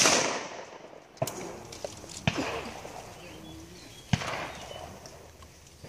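The reverberating tail of a close 12-gauge shotgun shot fading out, followed by three quieter shotgun shots, each with a short reverberation, about a second, two seconds and four seconds in.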